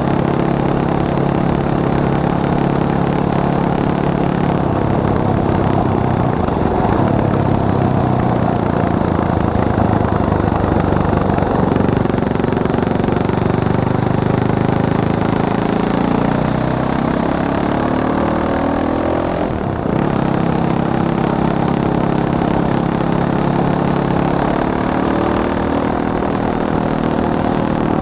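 Fantic Caballero 500 Flat Track's single-cylinder four-stroke engine running. Its pitch climbs steadily for a few seconds past the middle, breaks off briefly, then settles back to a steady note.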